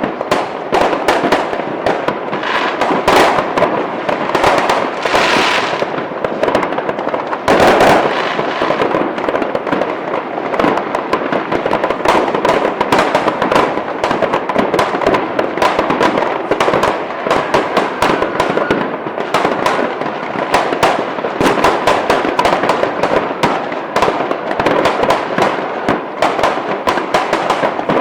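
New Year fireworks going off in a dense, continuous barrage of cracks and bangs, with a louder burst about seven and a half seconds in.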